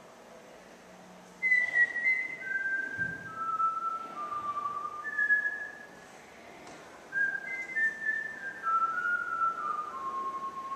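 A person whistling a tune: two phrases of held notes, each starting high and stepping downward, with a short pause between them.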